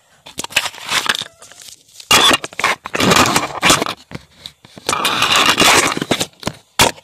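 Scraping and rustling from things being handled close to the microphone in several long noisy stretches, with a sharp click near the end.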